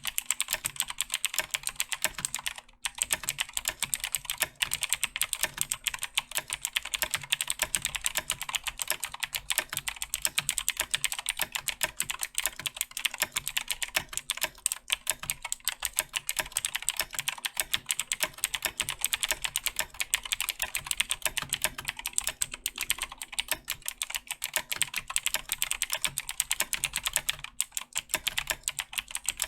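Razer BlackWidow 2014 Tournament Edition mechanical keyboard being typed on quickly and continuously, its clicky Razer Green switches giving a dense run of sharp clicks. The typing pauses briefly about three seconds in and again near the end.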